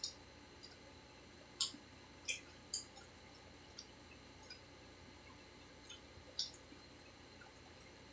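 Faint eating noises: scattered short, sharp mouth clicks and smacks from chewing pizza and French fries. The loudest come close together between about one and a half and three seconds in, with another a little past six seconds.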